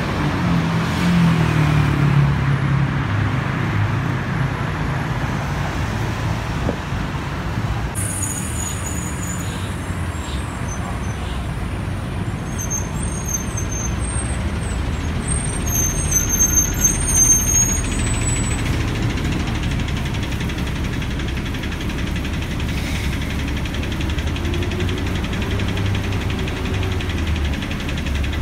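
Road traffic on a busy city road: the steady rumble of car, bus and truck engines and tyres, with thin high-pitched squeals between about a third and two thirds of the way through.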